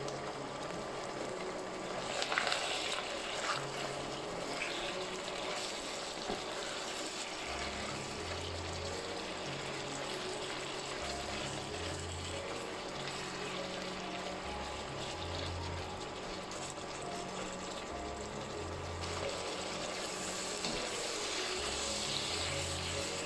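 A steady hiss of kitchen work, with a few short clatters about two to four seconds in, under quiet background music with a slow bass line.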